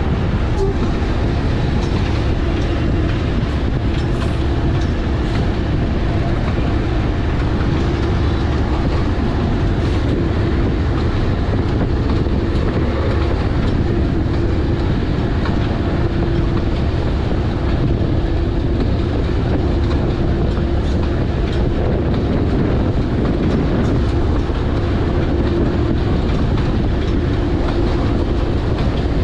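GE D10E-250 diesel-electric locomotive running steadily under way: a continuous engine drone with a steady hum and the wheels running on the rails.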